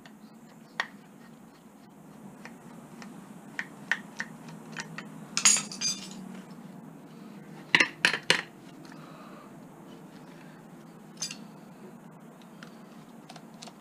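Metal clinks and clatter as a screwdriver works the handle screws of a scrap chrome kitchen tap and its metal parts knock together. Scattered light ticks, a louder rattle about five and a half seconds in, and three quick clinks about eight seconds in.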